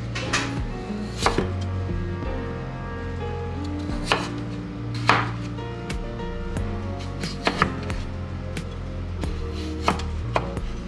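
Chef's knife slicing a peeled potato into rounds, the blade knocking onto a wooden cutting board in about nine sharp, unevenly spaced strokes. Background music plays under it.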